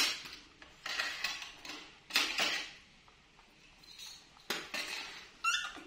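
Dishes and cutlery clattering and clinking in several short bursts, as when bowls, pots and spoons are handled.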